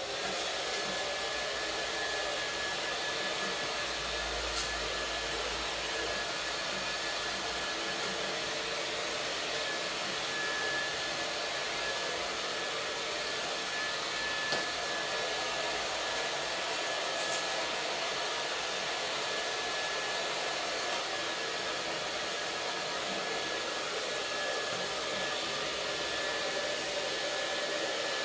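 Handheld hair dryer running steadily while drying a wet saluki's coat: a constant rush of air with a thin, steady high whine.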